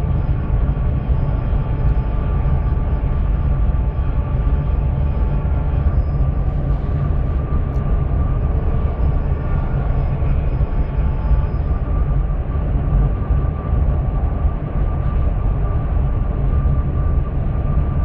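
Dubai Metro train running on elevated track, heard inside the carriage: a steady low rumble of the wheels on the rails, with a faint constant whine above it.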